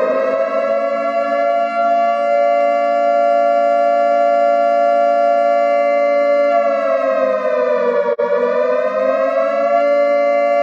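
Emergency alert system alarm: a loud, siren-like chord of several steady tones sounding at once. About six and a half seconds in, the pitch sags slowly, cuts out for an instant near eight seconds, then climbs back to the steady chord.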